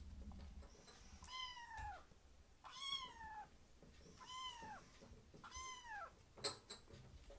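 Young kittens meowing for food: four short, high, thin meows, each rising then falling in pitch, about a second and a half apart. A couple of sharp clicks follow near the end.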